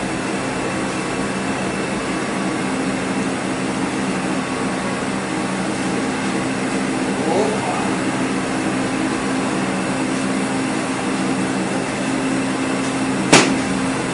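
Steady mechanical hum with an even low drone from a motor-driven, gas-heated rotating kadayıf griddle as it turns. One sharp knock near the end.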